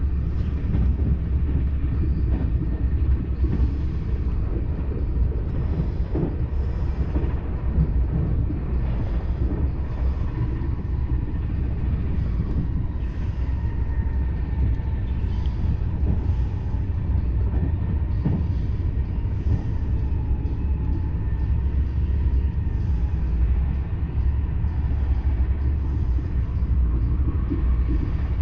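Steady low rumble of a TGV Duplex high-speed train running, heard from inside the passenger cabin, with a faint high whine that drifts slightly in pitch.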